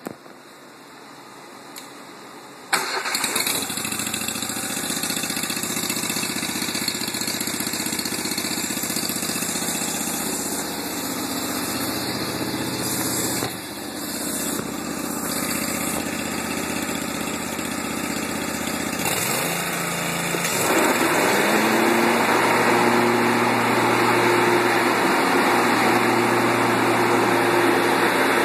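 Lawnmower engine starting up about three seconds in and running steadily at a low speed. A little past the halfway point its pitch rises and it settles into running faster and louder.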